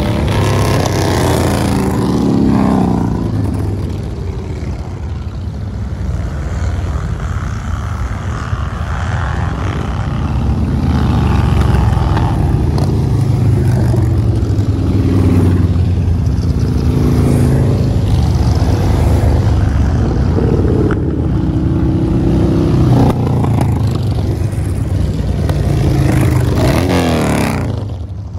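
A procession of cruiser and touring motorcycles riding past one after another, their engines rumbling steadily. Engine notes fall in pitch as bikes go by, most plainly at the start and near the end.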